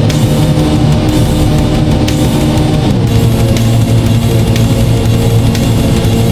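Black/death metal recording: loud electric guitar chords over dense drumming, the chords changing about three seconds in.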